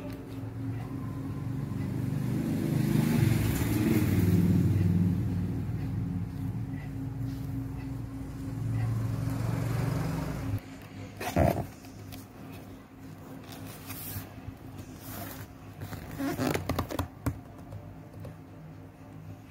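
A loud low rumble fills the first half and cuts off abruptly about ten seconds in. Then a cardboard box is handled and opened by hand, with scattered scrapes, rubs and sharp knocks of the flaps.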